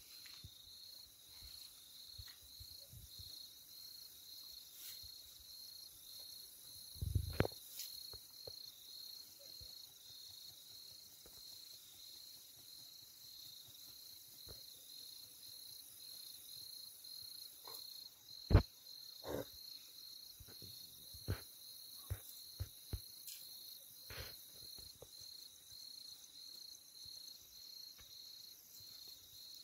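Crickets chirping in an even, steady rhythm over a constant high insect hiss. A few short knocks break in, the sharpest about eighteen seconds in.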